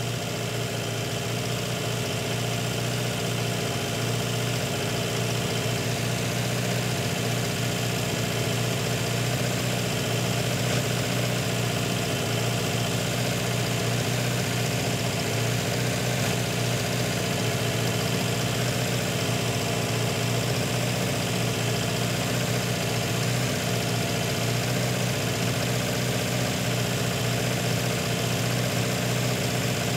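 Turbocharged petrol car engine converted to run on diesel, idling steadily while it warms up after its first start. It lacks the usual diesel rumble.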